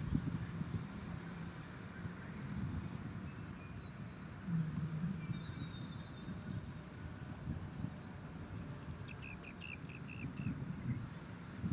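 Rural outdoor ambience: a high double chirp repeats about once a second over a low rumble, with a short run of bird twittering near the end.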